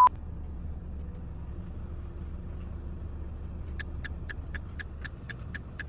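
A low steady hum, then, nearly four seconds in, a rapid even ticking starts, about four identical ticks a second, like a ticking-clock sound effect.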